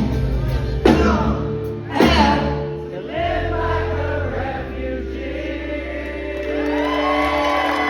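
Live rock band ending a song with three full-band hits about a second apart, drums and cymbals crashing on each, then the last chord ringing out. Near the end, crowd cheering starts to rise over the fading chord.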